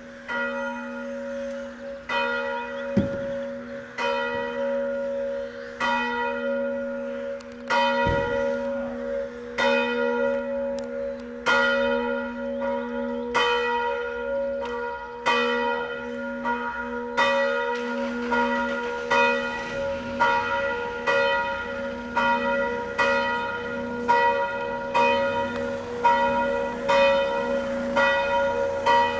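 Church bell of St. John the Apostle in Knyszyn ringing for noon. It is struck about once a second over a steady low hum, growing louder over the first few seconds.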